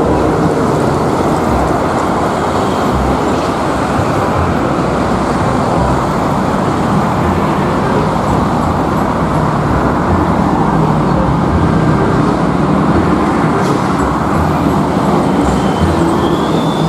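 Steady, loud road traffic noise: engines and tyres of passing vehicles, with no single pass-by standing out.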